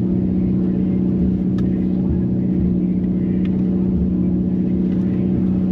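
Nissan RB30 straight-six engine running steadily at idle, a constant, unchanging pitch with no revving, and a few faint ticks.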